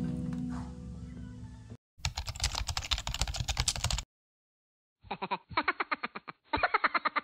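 Soft background music fades out, then rapid computer-keyboard typing clicks come in three quick runs, with a full second of silence after the first.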